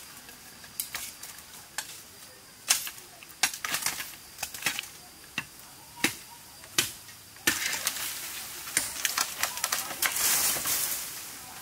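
A knife chopping at the base of a green bamboo culm in sharp, irregular strikes. About two-thirds of the way in, a long burst of leaf and stalk rustling as the cut bamboo tips over through the clump.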